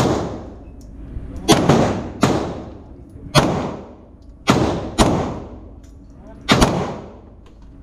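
Handgun shots at an indoor range: about eight shots at uneven intervals, roughly a second apart, each ringing on in a long echo.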